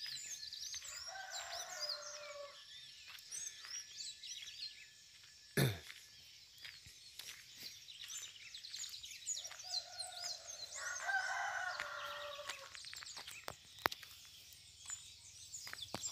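A rooster crowing twice, about a second in and again near the middle, each crow long and falling away at the end, over steady chirping of many small birds. There is a single sharp knock between the two crows.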